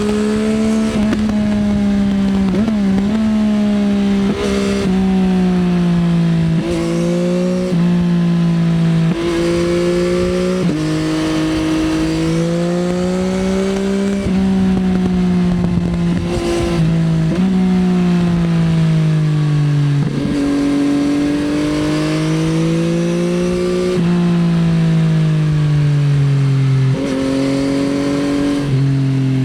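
2024 Yamaha XSR900's 890 cc CP3 inline-triple engine through an Akrapovič Racing Line exhaust, ridden hard: the revs climb and fall, stepping sharply at each gear change every couple of seconds.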